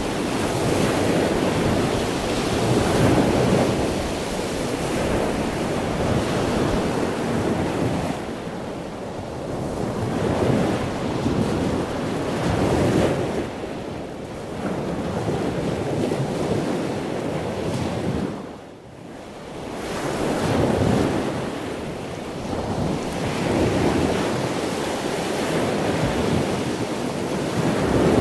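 Ocean surf: waves breaking and washing in, swelling and easing every few seconds, with a brief lull about two-thirds of the way through.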